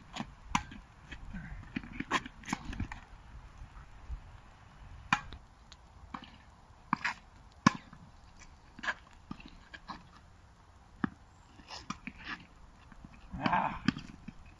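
Tennis rally on an outdoor hard court: sharp pops of the racket strings striking the ball and the ball bouncing, irregularly spaced every half second to second and a half. A brief higher-pitched sound comes near the end.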